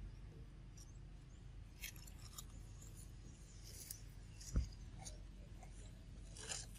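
Faint, scattered crackles of a dry leaf as a baby macaque grips and chews on it. One low thump partway through.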